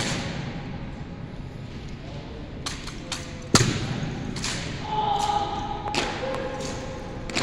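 Sharp claps and thuds of a drill team's rifles being slapped and struck in unison during armed drill movements, with the loudest about three and a half seconds in, each echoing through a large hall. A long, drawn-out shouted drill command comes about five seconds in.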